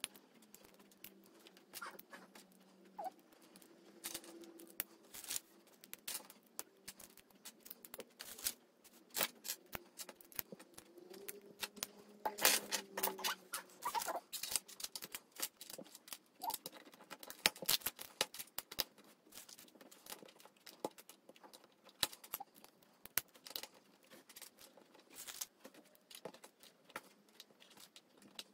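Plastic LEGO bricks clicking and clattering against each other and the wooden tabletop as they are picked through and pressed together: an irregular run of small sharp clicks, with a few louder clacks midway.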